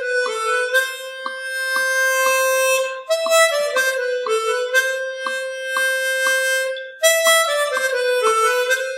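Outro music: a reedy, harmonica-like melody holding long notes over light plucked notes about twice a second, with a new phrase starting about three and seven seconds in.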